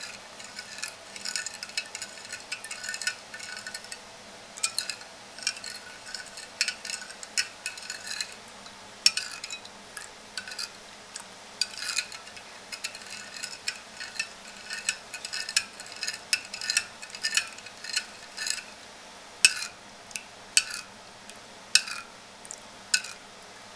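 Metal spoon stirring a thin liquid in a ceramic bowl, clinking and scraping against the bowl's sides in a quick, irregular run of strokes.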